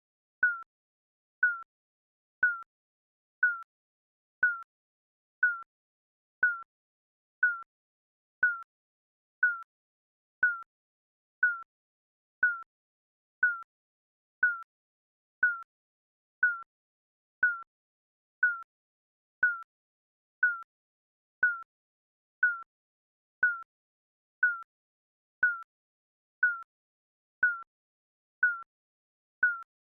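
Countdown timer's short electronic tick, a single clipped tone repeating steadily once a second to mark each passing second.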